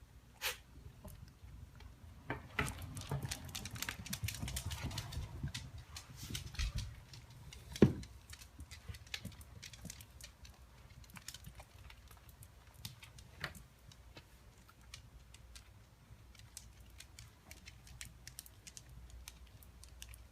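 Dachshund moving about in the postictal state after a seizure: scattered light clicks and taps, with a stretch of rustling and shuffling a few seconds in and one sharp knock near the middle.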